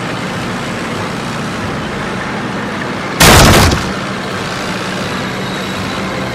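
Tank engine and tracks running steadily, with a loud crash a little over three seconds in as the tank breaks through a fence.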